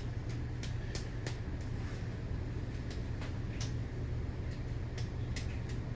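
Emerson 52-inch Premium ceiling fan running, a steady low hum with faint irregular clicks.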